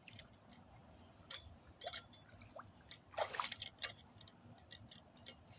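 Shallow floodwater sloshing and splashing as a rake handle is worked against a clogged storm drain grate under the water, with scattered small clicks and drips. The loudest splashing comes about three seconds in.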